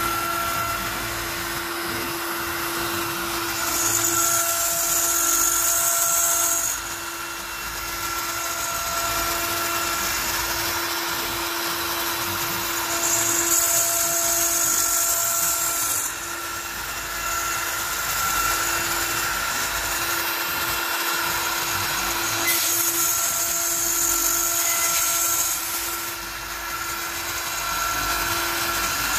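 CNC router spindle running steadily at high speed while a single-flute up-cut spiral bit cuts a circle in 3/8-inch cast acrylic. Three times a louder, higher cutting hiss rises for about three seconds as the bit bites harder into the plastic.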